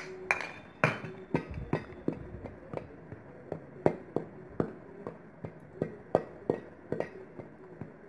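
Metal spoon clinking and tapping against a stainless steel bowl while stirring dry flour, a run of sharp clicks about two or three a second.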